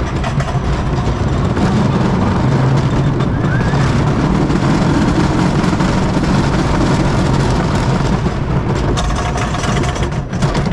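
Wooden roller coaster train running on its wooden track: a steady, loud rumble and rattle of the wheels, with wind on the microphone. Near the end there is a faster clatter of sharp clicks.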